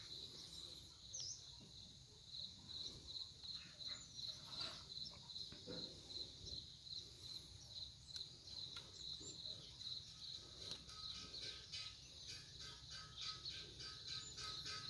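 Faint outdoor insect chirping: a steady, evenly pulsed high note. Soft rustles of chrysanthemum leaves and stems are heard as flower buds are pinched off by hand.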